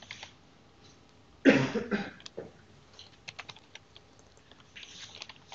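A person coughs once, about a second and a half in, followed by a run of scattered computer keyboard key clicks as code is typed.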